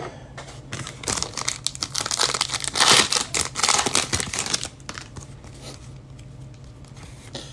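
Plastic wrapping on football trading-card packaging being torn open and crinkled by hand: a dense run of crackling from about a second in, loudest near the middle, dying away a little past halfway.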